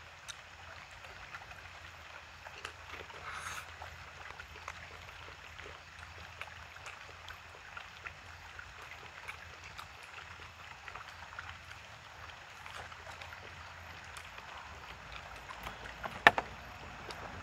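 Chopsticks making small scattered clicks and scrapes in a plastic takeout tray, over a steady background hiss. About a second before the end comes one sharp, much louder clack as a plastic cup is picked up from the table.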